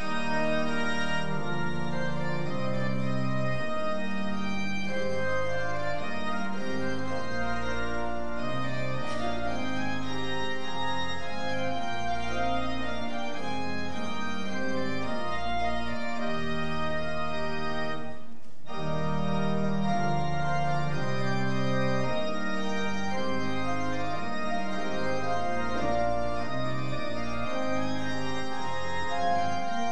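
Church organ playing the closing voluntary: full chords held over deep pedal notes, with a brief break about eighteen seconds in.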